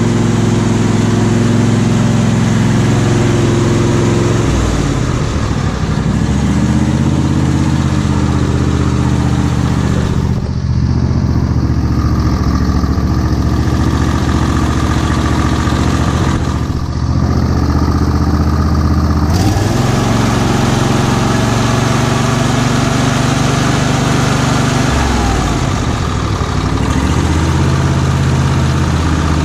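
22 horsepower Briggs & Stratton V-twin on a Huskee lawn tractor running steadily, its speed shifting a few times.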